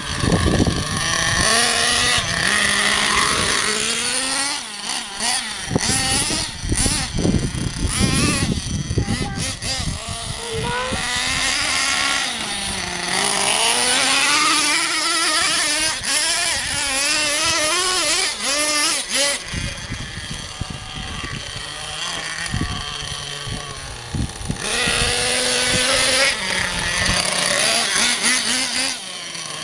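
Small nitro engine of a Thunder Tiger Sledge Hammer RC monster truck running hard, its high pitch rising and falling again and again as the throttle is worked.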